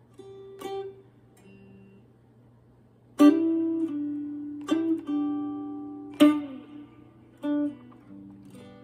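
Guitar playing a blues passage without singing: a few soft picked notes, then loud strummed chords from about three seconds in, struck about every second and a half and left to ring down.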